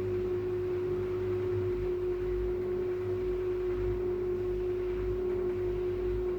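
Arçelik Orbital washing machine in its spin cycle, the drum turning at a steady high speed: a steady motor whine over a low rumble.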